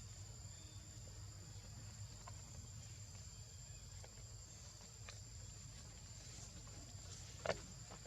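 Steady high-pitched drone of insects over a low background rumble, with a few faint clicks and one sharper click near the end.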